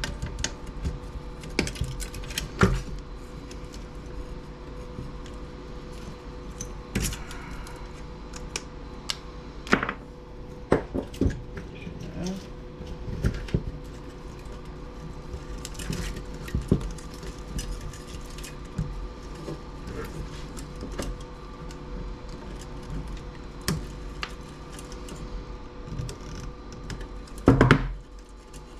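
Irregular clicks, clinks and knocks of hand tools and small metal parts while components are pulled off a small CRT TV's chassis for scrap, with a louder clatter near the end and a faint steady hum underneath.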